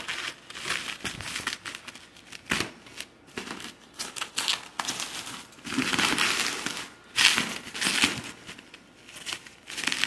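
Bubble wrap and plastic packing crinkling and rustling as it is cut open with scissors and pulled back, in irregular bursts with sharp clicks. The loudest crinkling comes about six and seven seconds in.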